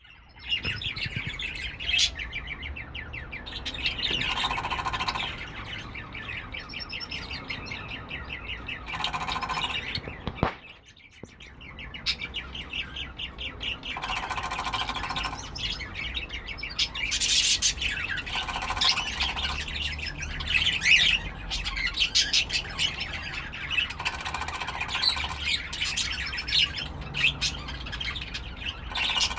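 Cockatiels chirping and squawking, with repeated short bursts of rapid pulses about every four to five seconds.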